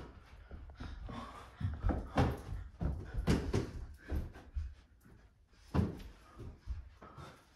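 A series of soft, irregular thumps and bumps: a rubber balloon being batted about and a child landing and rolling on a carpeted floor.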